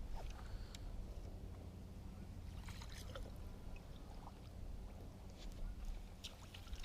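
Faint water lapping at a small fishing boat's hull, under a low steady hum, with a few small clicks.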